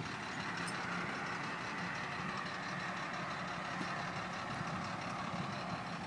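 A truck engine idling steadily, with a low even hum under a broad steady hiss.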